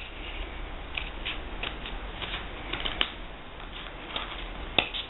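Scissors snipping through a folded stack of paper, a string of short, irregular snips.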